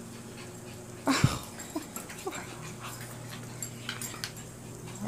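Dogs whimpering and panting, with short rising whines, a few clicks, and a louder burst with a thump about a second in.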